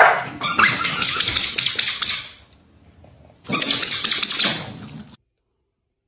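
Dogs scrambling on a tiled floor, claws scrabbling and squeaking in two noisy bursts, cutting off suddenly about five seconds in.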